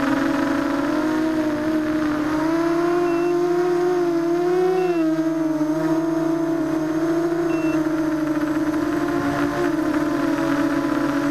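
ZMR250 quadcopter's four brushless motors and propellers whining, recorded by the camera on the frame. The pitch shifts with throttle: it climbs for a couple of seconds, drops about halfway through, then evens out.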